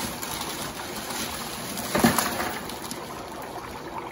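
Dry ice bubbling and gurgling in hot water, a steady churning, with one brief louder surge about two seconds in.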